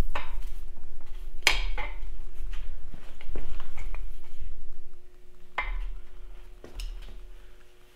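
Metal clanks and clinks as aluminum pistons on their connecting rods are pushed out of a Farmall Super M engine block's cylinders and pulled free, with a few sharp knocks, the loudest about a second and a half in and again near six seconds. A faint steady hum runs underneath.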